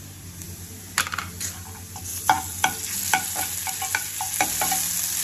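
Chopped onions, curry leaves and whole spices sizzling in hot oil in a metal pan. A steel spoon stirs them, scraping and knocking against the pan about twice a second.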